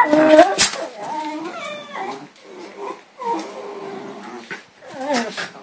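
Miniature schnauzers play-fighting and vocalizing: a run of short whining cries that slide in pitch, loudest at the start and again near the end, with a sharp click about half a second in.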